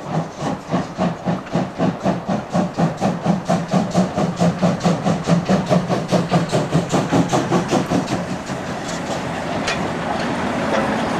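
Steam locomotive working hard as it pulls away with a passenger train: sharp exhaust chuffs at about five a second, quickening slightly, with the hiss of steam from the open cylinder cocks. Near the end, as the engine passes close, the beats blur into a steady rolling noise of wheels and motion with some clicks.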